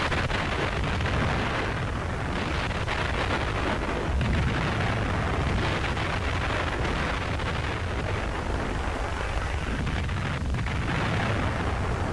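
A continuous, loud rumbling rush of noise with a heavy low end and no tune or rhythm, swelling and easing only slightly.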